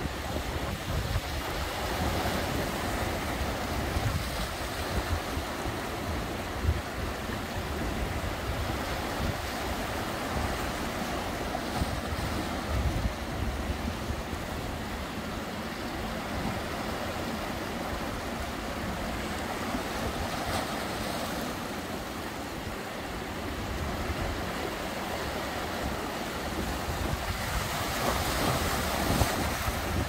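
Sea waves washing and breaking over rocks on a rocky shore, a steady surf with a swell near the end, with wind buffeting the microphone as a low rumble.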